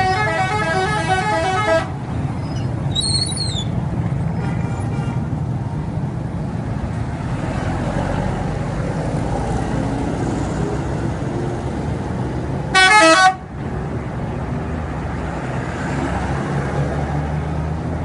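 Bus telolet horns playing short stepping multi-note tunes: one run for the first couple of seconds and a louder, brief one about thirteen seconds in. Underneath, the steady rumble of motorcycle and bus traffic.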